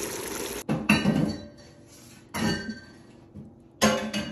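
Stew bubbling steadily in a stainless steel stockpot, cut off suddenly after about half a second. Then come three sharp metallic clanks that ring on, a metal utensil knocking against the pot, about a second and a half apart; the first, just under a second in, is the loudest.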